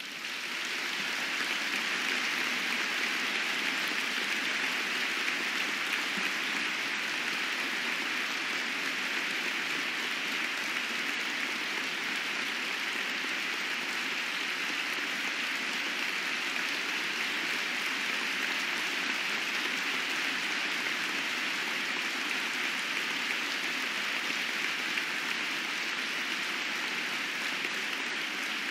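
A large audience in a hall applauding: many hands clapping together in a dense, steady patter that swells within the first second and keeps up at an even level.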